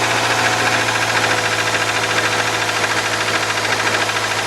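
Subaru boxer engine running steadily with a fast, even knock on top of its note, the engine knock that the mechanic goes on to investigate.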